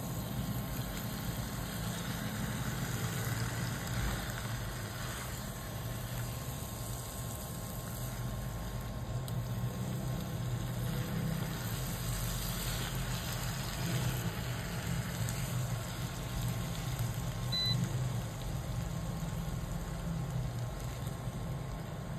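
A plastic spatula stirring and turning fried catfish pieces in thick curry sauce in a nonstick pan, over a steady low hum. A brief high beep comes about three quarters of the way through.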